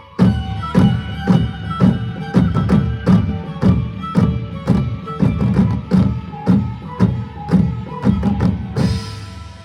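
Manipuri traditional drumming by a troupe of dancing drummers. Loud drum strokes with accents about twice a second play over a held melody line. Near the end comes a final high crash that dies away.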